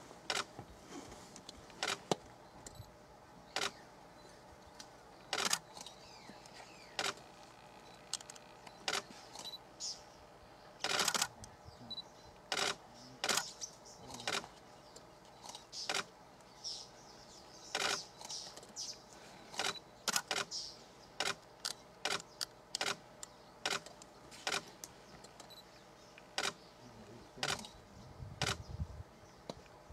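Camera shutters clicking irregularly, singly and in quick runs, with a brief low rumble near the end.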